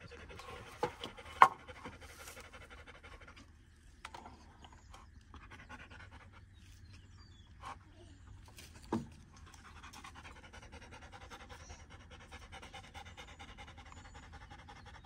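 A dog panting steadily close by, with a few sharp knocks, the loudest about a second and a half in.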